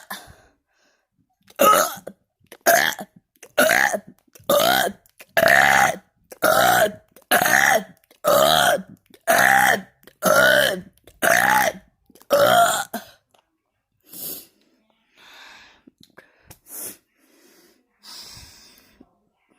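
A person burping loudly again and again, about a dozen burps roughly a second apart, each under a second long and falling slightly in pitch. They are followed by a few much fainter sounds in the last few seconds.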